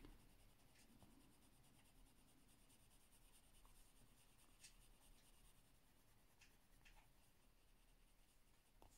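Very faint scratching of a coloured pencil on paper, with a few light ticks; otherwise near silence.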